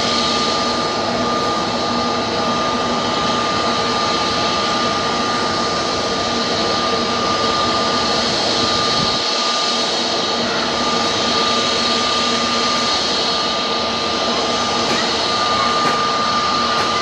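Airbus A350-900's Rolls-Royce Trent XWB turbofan jet engines running, a loud steady jet noise with a steady whine over it. The deep rumble thins about nine seconds in.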